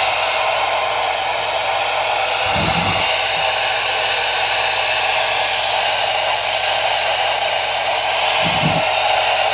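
Radio receiver hissing steady static, with no station or alert coming through. Two soft low bumps come through, about 3 seconds in and near the end.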